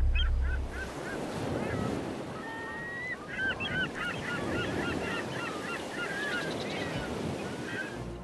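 Seagulls calling: many short, overlapping rising-and-falling cries over a steady rushing noise.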